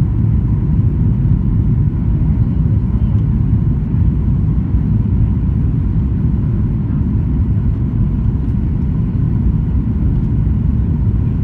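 Steady low rumble inside the passenger cabin of a Boeing 737-800 on approach with flaps extended: its CFM56 turbofans and the airflow over the airframe, with a faint steady hum above the rumble.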